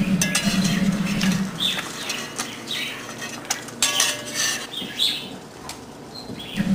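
A spatula clinking and scraping against a cast-iron skillet while an egg fries, with short bird chirps now and then. A low hum sounds during the first second and a half and comes back just before the end.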